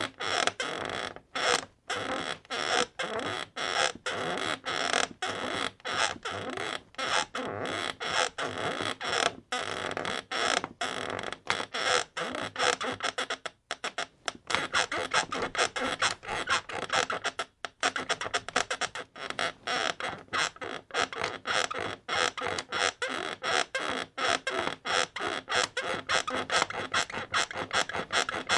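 Bed creaking over and over in quick, squeaky strokes, about two to three a second, pausing briefly twice midway.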